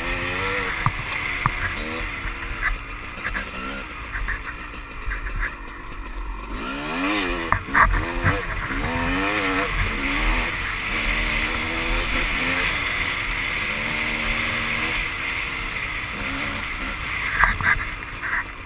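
Dirt bike engine on the move, its pitch rising and falling as the throttle is rolled on and off, with a sharp rise about seven seconds in. A steady rush of wind runs underneath, with occasional sharp knocks of stones and chassis.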